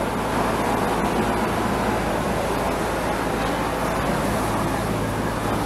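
Steady rumble of engines, from demolition machinery and road traffic, with a low hum and no distinct knocks or crashes.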